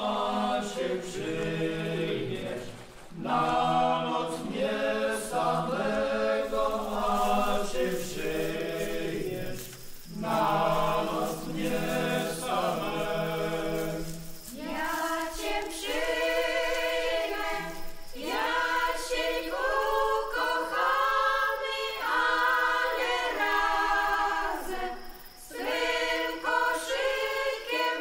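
Traditional Polish folk vocal group singing unaccompanied in phrases with short breaths between them. Men's voices sing the first half; about halfway they drop out and higher women's voices carry on.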